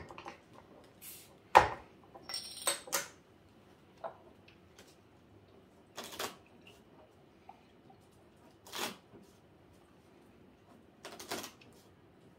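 Game cards being dealt onto a tabletop: a handful of separate short taps and slaps a second or more apart, the loudest about one and a half seconds in, with a quick cluster of clicks soon after.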